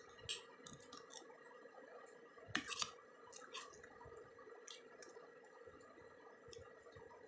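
Quiet eating: soft wet mouth clicks from chewing instant noodles and a spoon scraping and clinking on a metal plate, with the loudest cluster about two and a half seconds in. A faint steady hum runs underneath.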